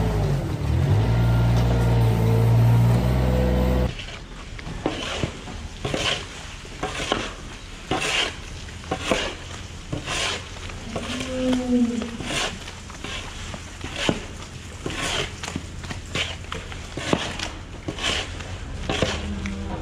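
An engine runs steadily for the first few seconds: the small machine carrying a rotating stall brush. Then, after it cuts off, a steel shovel scoops and scrapes sand bedding over and over, a gritty scrape and toss about once or twice a second.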